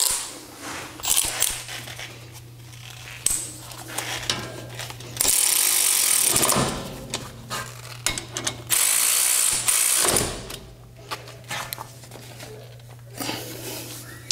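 Ratchet with a 13 mm socket tightening the brake caliper bolts: runs of pawl clicks, with two longer loud spells about five and nine seconds in.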